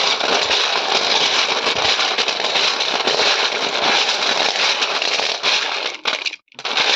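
River snail shells rubbed and churned together by hand in a steel bowl with salt: a loud, dense clatter of shell on shell and on metal that stops briefly near the end. The snails are being scrubbed with salt to draw out their slime before cooking.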